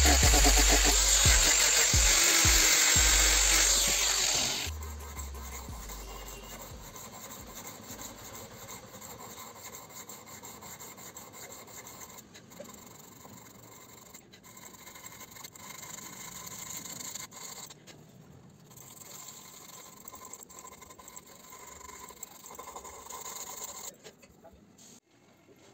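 An angle grinder with a sanding pad runs loudly, then is switched off about five seconds in and winds down. After that, a hand file scrapes on the wooden handle scale of a knife.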